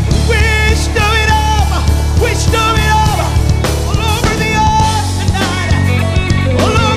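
Live worship band music: drum kit, bass and keyboards under a wordless or vocalised melody line.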